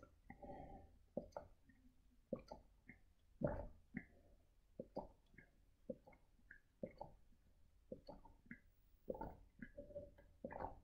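A person gulping water continuously, swallowing faintly about twice a second.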